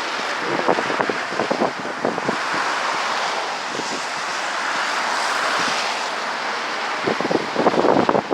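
River Ribble in flood: a steady rush of fast-flowing floodwater, with wind buffeting the microphone in short gusts about a second in and again near the end.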